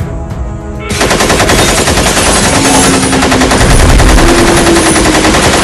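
Sustained automatic machine-gun fire, a rapid continuous burst that starts about a second in after a moment of background music.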